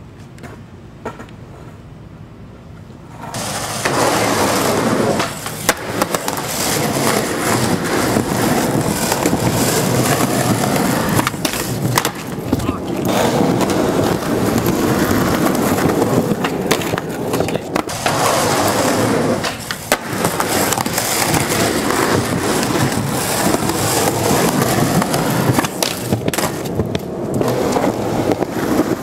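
Skateboard wheels rolling on rough concrete, a loud grinding rumble that starts about three seconds in, with scattered sharp clacks.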